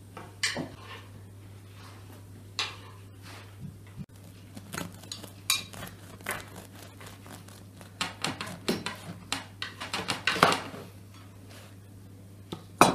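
Scattered clinks and scrapes of plates and cutlery, then a knife sawing through a crusty braided bread loaf on a wooden cutting board, with a run of quick strokes about two-thirds of the way through.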